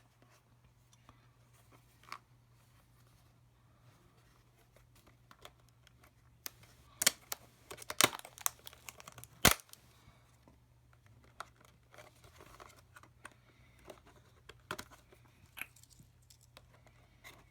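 Plastic retail pen packaging being handled and worked open: scattered crinkles and sharp clicks, with a few loud snaps between about seven and ten seconds in.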